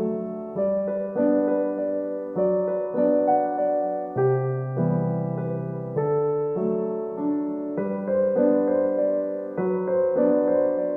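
Background music: a gentle piano melody with notes struck in a steady rhythm.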